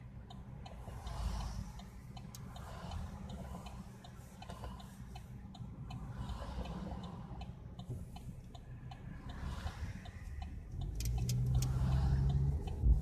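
Car interior while driving: a steady low road rumble with a quick, regular ticking over it, and a low hum growing louder over the last two seconds.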